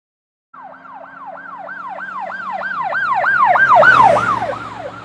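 Emergency-vehicle siren yelping in quick rising-and-falling sweeps, about three a second. It starts about half a second in, grows louder until about four seconds in, then fades.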